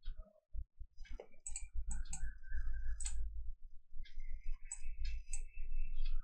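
Computer mouse clicking: a series of scattered sharp clicks while a shape is selected and a colour-wheel handle is dragged, over a steady low background rumble.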